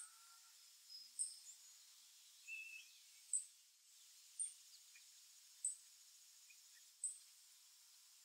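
Small songbird giving a sharp, high chip note repeated every second or so, with a few softer, lower bird calls in between, over a faint outdoor hiss.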